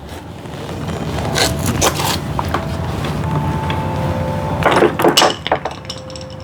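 Hands scraping and rubbing plastic and rubber parts as a fuel line is worked onto the fuel tank fitting of a Homelite leaf blower, with short clicks and scrapes about a second and a half in and again about five seconds in, over a steady low hum.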